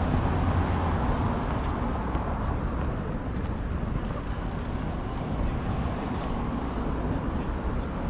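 Steady city traffic noise: a low rumble of cars passing on the road.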